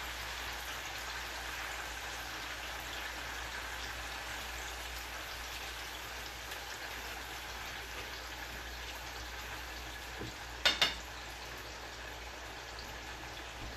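Beef pieces frying in very hot oil in a skillet, a steady sizzle, being turned with metal tongs. A brief sharp double click comes about ten and a half seconds in.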